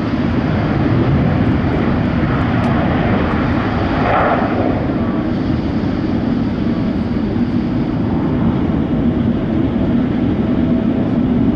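GE90-115B turbofan engines of a Boeing 777-300ER running steadily: a loud, continuous jet drone with a steady low hum, swelling briefly in hiss about four seconds in.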